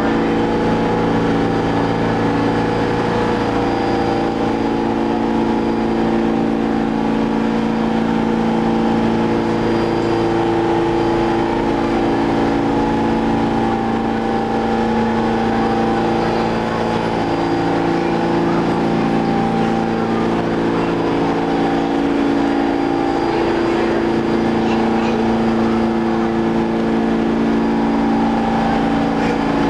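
Pullman-Standard R46 subway train standing in a station with its doors open, its onboard equipment giving a steady hum with several held tones.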